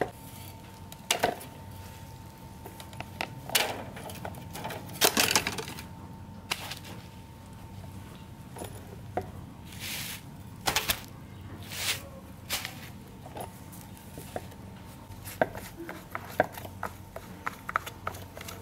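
Parts of an old pedestal fan being handled and taken apart: scattered knocks and clicks with a few short scrapes.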